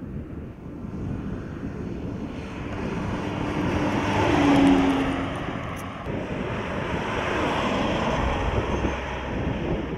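2016 Mitsubishi L200 pickup driving past: its engine and tyre noise swell as it approaches, peak about four to five seconds in, then drop back and run on steadily as it drives along.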